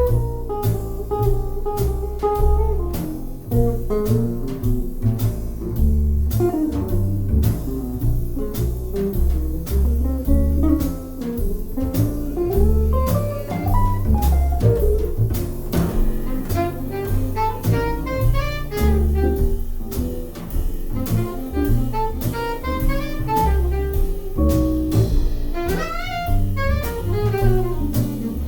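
Instrumental break of a swinging jazz song: a double bass plays a steady line of notes with a drum kit keeping time, under a solo melody line that wanders up and down.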